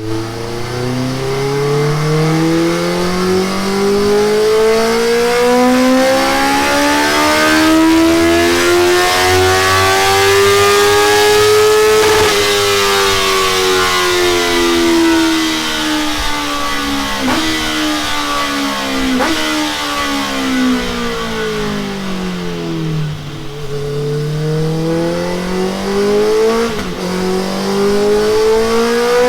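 Honda CBR650R inline-four engine through a Delkevic oval carbon-fibre exhaust, run up on a dyno: the revs climb smoothly for about twelve seconds, fall away over the next ten with a few short cracks, then rise again near the end.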